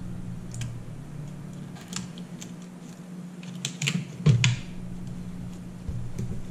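Light, scattered clicks and taps of tweezers and gloved fingers handling a laptop's LCD panel and its cable connector, with a cluster of louder clicks about four seconds in, over a steady low hum.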